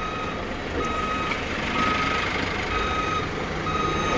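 A truck's reversing alarm beeping steadily, about one short beep every 0.7 seconds, over the running of heavy-truck engines.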